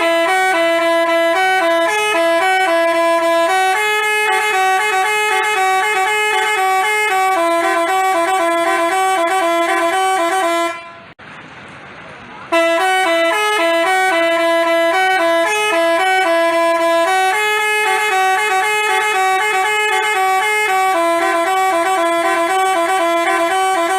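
Basuri telolet bus horn playing its quick multi-note tune. The same roughly eleven-second phrase sounds twice, with a short break between.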